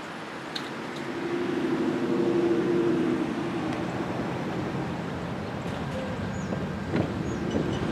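Amtrak passenger train standing at the platform, its diesel engine running with a steady low hum that swells about a second in. A sharp click comes about half a second in, and a single knock near the end.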